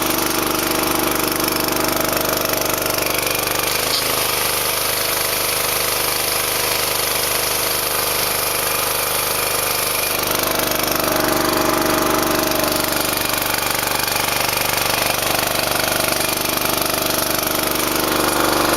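Pressure washer's small engine running steadily. Its note shifts slightly about four seconds in and again around ten seconds in.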